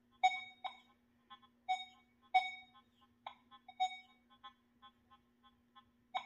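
Nokta Makro Legend metal detector, set to 40 kHz single frequency, giving short beeps as its coil passes over a small piece of gold. The beeps come irregularly, about seven of them, most in the first four seconds, over a faint steady low hum.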